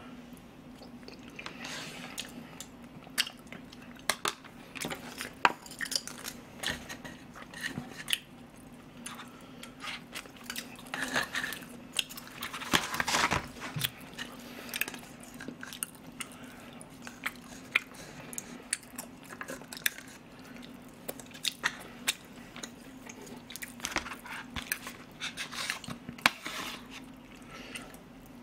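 Close-miked eating sounds: a metal spoon clicking and scraping in a plastic takeout container, and wet chewing of rice porridge, as many short clicks through the whole stretch.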